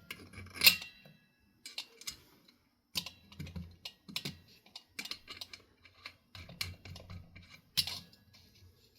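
Irregular light clicks and taps of small ceiling-fan parts being handled and fitted by hand, with a sharper knock about a second in and another near the end.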